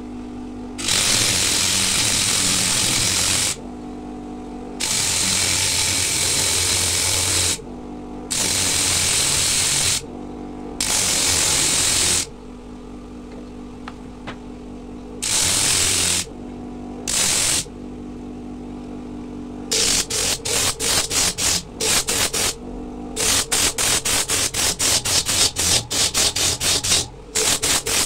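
Bench grinder fitted with a large sanding disc, its motor running with a steady hum, while a coconut shell is pressed against the spinning disc in several long sanding passes of one to three seconds each, loud over the motor. Later the shell is touched to the disc in quick short strokes, about four to five a second.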